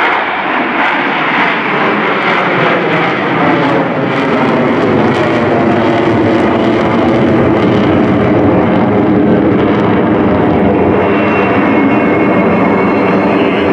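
Four Blue Angels F/A-18 Hornets flying overhead in tight diamond formation, giving a steady, loud rush of jet engine noise. It grows a little louder after a few seconds.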